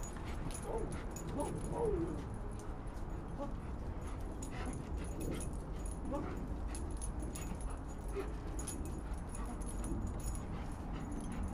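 German shepherd whining and yipping in short, sliding high cries, excited as it jumps again and again for a raised hand; the cries come thickest in the first couple of seconds. A steady low rumble runs underneath.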